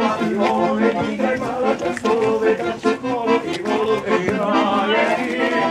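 Accordion playing a lively traditional folk dance tune for circle dancing, with a steady, even beat.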